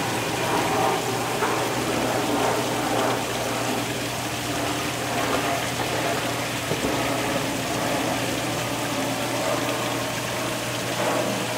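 Steady rushing of running water, such as a fountain or pump-fed stream, with a low steady hum underneath.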